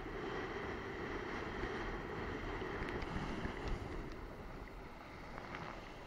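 Wind buffeting the microphone and sea water rushing and splashing around a kitesurfer's action camera as it skims over choppy waves. A few faint ticks come in the middle, and the rush eases slightly over the last couple of seconds.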